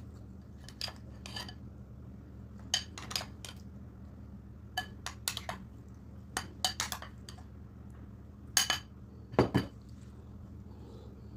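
Plastic serving spoon clinking and scraping against a glass bowl as stew is scooped out onto a plate, in short clusters of sharp clicks. A heavier knock comes about nine and a half seconds in.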